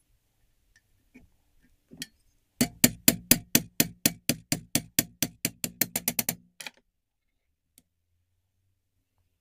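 A homemade ratchet press clicking as it presses a square wooden peg: about twenty sharp clicks in quick succession over some four seconds, speeding up near the end.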